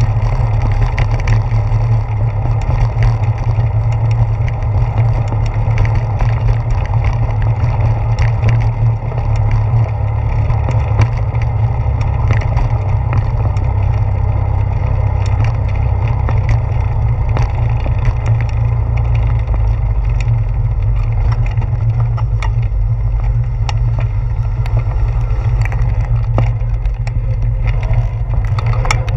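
Bicycle tyres rolling over a wooden boardwalk, giving many short, irregular knocks and clatters as they cross the plank joints. Under it runs a heavy, steady low rumble of the ride picked up by the handlebar-mounted camera.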